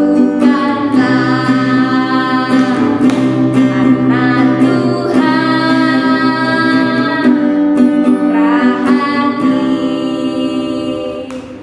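A woman singing a children's song over a guitar accompaniment; the song fades out near the end.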